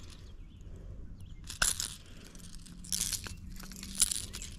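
Metal treble hooks and hardware of a hard topwater plug clicking and rattling in a few short bursts, about a second and a half in, around three seconds and again near four seconds, as the front hook is worked out of a bass's mouth.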